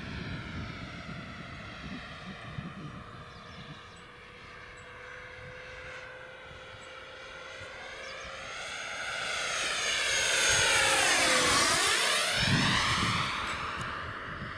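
Freewing Yak-130 RC jet's electric ducted fans whining as the model flies past. The whine grows louder to a peak about ten to twelve seconds in, then drops in pitch as the jet passes and fades away.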